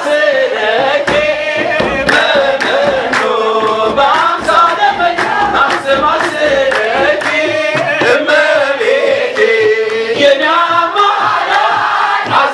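Men singing an Ethiopian Orthodox hymn (mezmur) through microphones, with hand clapping keeping the beat.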